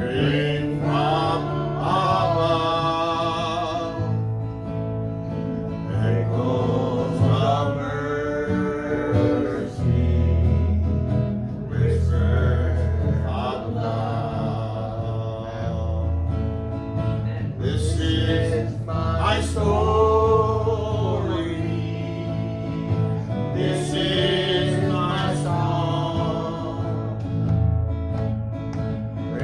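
Church congregation singing a gospel hymn together, accompanied by guitar and a steady bass line.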